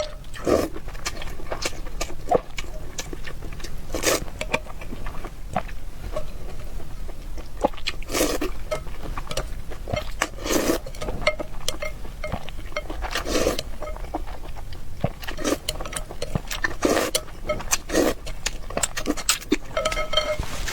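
Close-miked eating sounds: wet chewing and slurping of vermicelli glass noodles, in irregular mouthfuls with sharp smacks and longer slurps every second or so.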